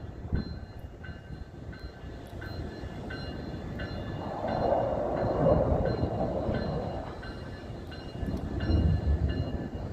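Amtrak passenger train led by a Siemens Charger diesel locomotive approaching on curving track: engine and wheel rumble that swells and eases. A faint ringing repeats about every two-thirds of a second.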